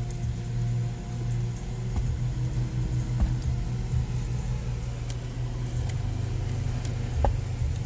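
Car engine idling, a steady low hum heard from inside the cabin, with a few faint small clicks.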